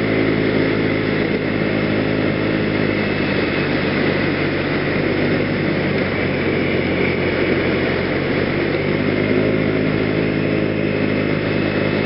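Genuine Buddy 125cc scooter's single-cylinder four-stroke engine running steadily at cruising speed, with wind rushing over the helmet-mounted microphone.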